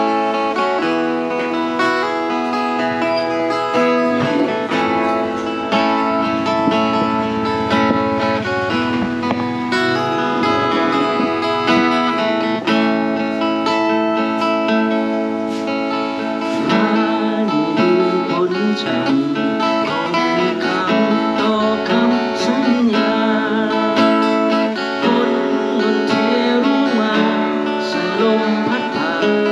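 Acoustic guitar played live, a continuous run of chords and plucked notes.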